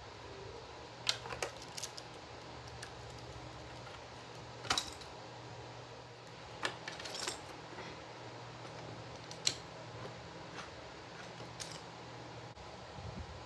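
Irregular small clicks and clatters of hard plastic and metal parts of a mechanical keyboard being handled, about eight in all, some in quick pairs, over a steady low hum.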